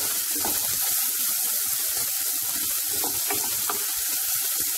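Chopped capsicum, green peas and onion sizzling in hot oil in a non-stick kadai while being stir-fried with a wooden spatula: a steady frying hiss with a few light scrapes of the spatula.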